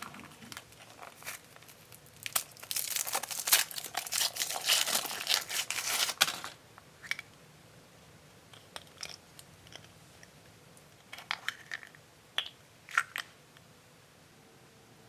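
A chocolate surprise egg's wrapper being crinkled and torn open, dense crackling for about six seconds, then a few sparse crinkles and small clicks.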